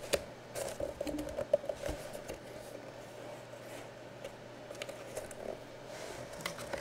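Cardboard jersey box being handled and opened, with scattered light taps, clicks and rubbing of cardboard as the lid is worked off, over a faint steady hum.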